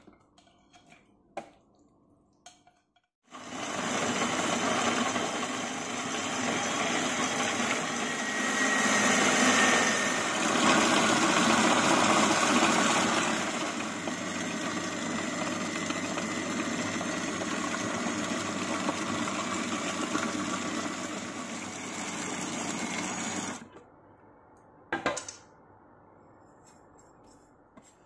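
Kenwood food processor starts about three seconds in and runs steadily for about twenty seconds, its blade chopping raw fish chunks into a smooth paste, then cuts off suddenly. A few light knocks come before it starts, and a single click follows a little after it stops.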